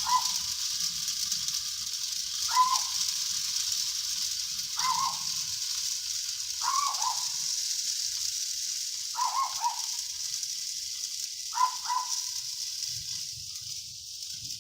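A dog barking at a distance: single or double barks about every two and a half seconds, six times. A steady high hiss runs underneath.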